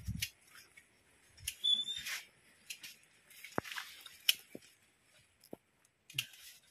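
Scattered snips, snaps and leaf rustling as tomato leaves are pruned off the plants by hand, with one brief high squeak about one and a half seconds in.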